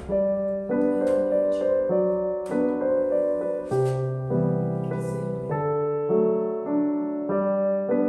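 Background piano music: a gentle keyboard melody with notes changing about twice a second.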